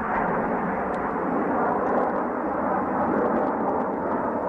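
Steady jet noise from the Snowbirds' formation of nine Canadair CT-114 Tutor jets, each with a single turbojet engine, flying past. It sounds dull and muffled, with no treble.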